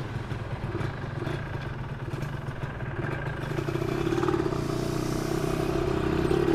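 Yamaha 125ZR's two-stroke single-cylinder engine running as the bike moves off and rides past, growing steadily louder over the last few seconds.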